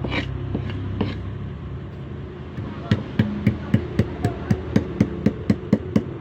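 Pestle pounding kencur (aromatic ginger) in a mortar: a few scattered knocks, then from about three seconds in a steady run of sharp knocks, about four a second.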